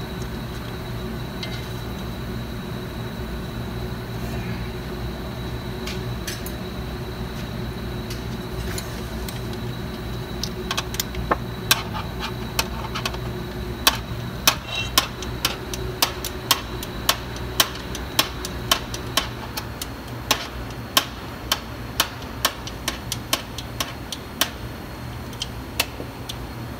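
A hand ratchet clicking as the 8mm bolt holding the transmission wiring harness is run in. The sharp metallic clicks start about ten seconds in and come roughly two a second over a steady hum.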